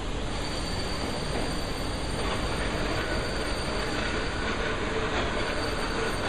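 Steady mechanical rumble and hiss with a few faint, steady whining tones over it.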